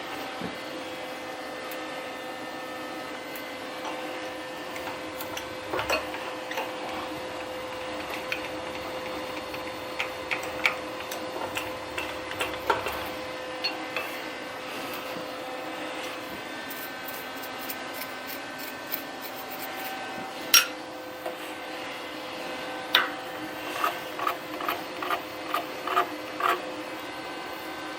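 Milling machine spindle running with a steady hum while the end mill cuts along the profile, with scattered sharp ticks and clicks that come thicker in the last several seconds.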